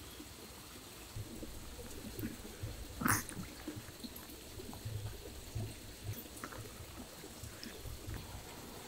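Small Pomeranian dogs eating from wooden bowls: a steady run of small wet chewing and licking sounds with soft clicks, and one louder click about three seconds in.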